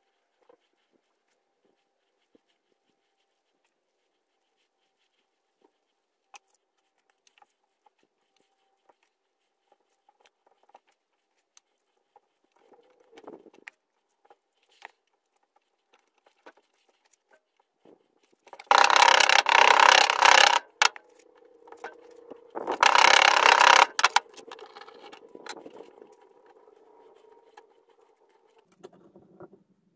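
Mostly near silence, with faint scattered clicks and rustles of casting sand being packed by hand into a flask. Two loud, harsh noises break in about two-thirds of the way through: one lasts about two seconds and the other about a second.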